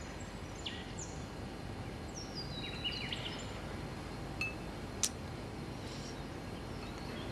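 Quiet outdoor-style background ambience: a steady low hiss with a few short high bird chirps that fall in pitch, about one second in and again around three seconds in, and a single sharp tick about five seconds in.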